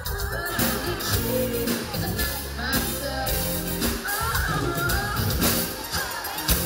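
Live pop-rock band playing, with a woman singing lead into a handheld microphone over drums and electric bass.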